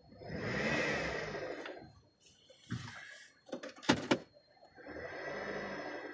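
Saturn VUE 2.2-litre four-cylinder engine revved twice, each time a loud noise rising and falling over a second or two. This is the strange noise of a car that will not accelerate past about 4000 rpm, which the owner suspects comes from a failing CVT. Between the revs come a few sharp clicks or knocks, two of them loud, about four seconds in.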